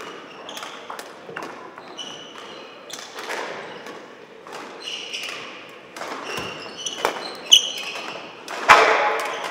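Badminton doubles rally: repeated sharp racket strikes on the shuttlecock, mixed with short squeaks of shoes on the sports hall floor. The loudest hits come about seven and a half and nearly nine seconds in.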